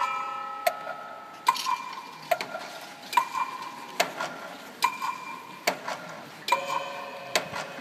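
Steady clock-like tick-tock, one tick about every 0.8 s, alternating between a lower and a higher pitch, with a faint held tone from the band dying away in the first couple of seconds.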